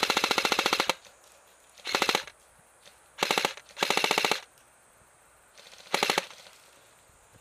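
Airsoft AK-type electric rifle (a modified Real Sword Type 56) firing full-auto in five short bursts of rapid clicking shots, the first and longest about a second long.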